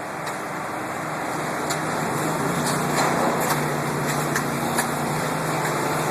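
Engine of construction machinery running steadily, its hum growing a little stronger about halfway through, with a few light metal knocks from the steel decking work.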